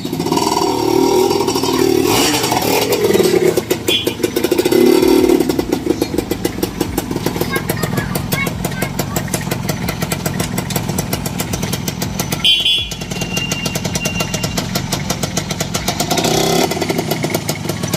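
Freshly overhauled Kawasaki Leo Star 135's single-cylinder two-stroke engine running. It is revved up in the first few seconds, then settles to a steadier run, with a brief dip about twelve seconds in.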